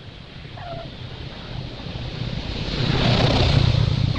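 A baby macaque's single short whimper, followed by a broad rushing noise that swells and peaks about three seconds in over a steady low rumble.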